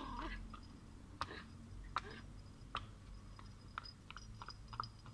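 Faint, irregular clicking footsteps on hard ground, a few spaced-out steps at first and then quicker ones, over a low steady hum.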